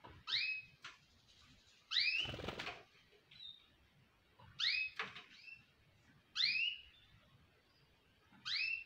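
Canaries giving a short call, each rising then dipping, five times at roughly two-second intervals, with a brief rustle under the second call about two seconds in.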